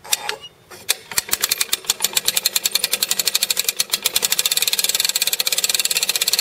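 Hand-crank ratchet winch letting out rope: a rapid, even run of clicks from the pawl riding over the toothed gear as the crank turns. It starts about a second in and speeds up, easing the tension off the ballista's bowstring.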